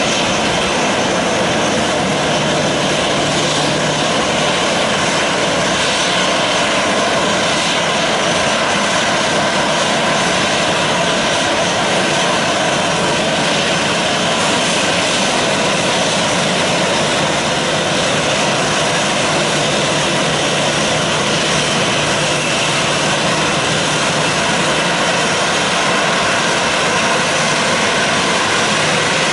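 Boeing 737-800's CFM56-7B turbofan engines running at taxi power, a steady, even jet noise.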